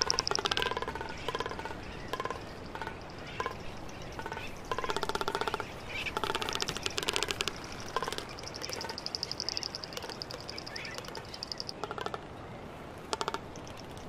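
Frigatebirds calling: repeated bursts of very fast rattling, trilling calls, some short and some lasting a second or more, with quieter gaps between them.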